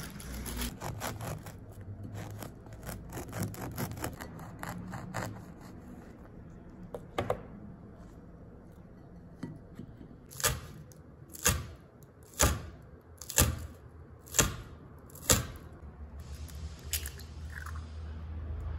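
Crusty French bread being broken and torn apart by hand, the crust crackling. About halfway through come six sharp, loud crackles about a second apart.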